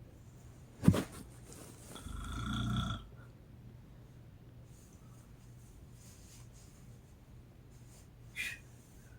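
A woman snoring with a parrot-like whistle: one snore about two seconds in, a rough low rumble with steady high whistling tones over it. A sudden sharp sound about a second in is the loudest thing, and a short high squeak comes near the end.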